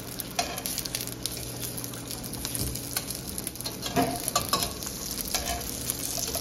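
Dumplings frying in oil in a skillet, sizzling and crackling steadily as they brown, with a few sharp clicks of metal tongs against the pan as they are turned over.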